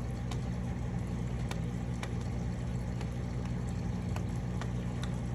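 Clown loaches making sharp snapping clicks, about half a dozen at irregular intervals, as they grind their pharyngeal teeth while feeding. A steady low hum runs underneath.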